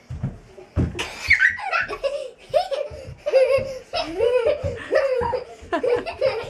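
Young children laughing in repeated high-pitched bursts, with short low thumps between them.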